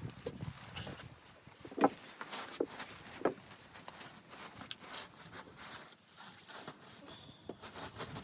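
Scattered light knocks, clicks and rustling, with three louder knocks between about two and three and a half seconds in.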